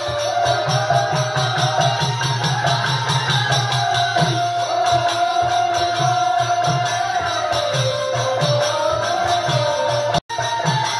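Harinam sankirtan: devotional music with a group singing over a steady, fast drum beat and jingling hand percussion. The sound cuts out for an instant about ten seconds in.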